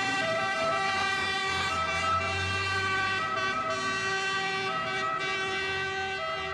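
A fire engine's siren sounding steadily as the truck pulls away.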